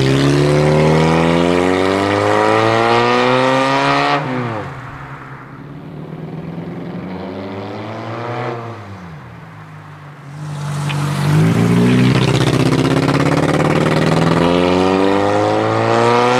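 A 1998 Chevy Prism's four-cylinder engine, running with chocolate milk in place of oil and in the fuel, revs hard as the car pulls away. Its pitch rises for about four seconds and then drops as the car moves off. After a quieter stretch it revs up again, rising steadily until near the end as the car comes back.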